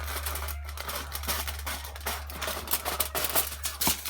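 Dense, irregular crackling and rustling of a wrapping material being handled by hand, over a steady low hum.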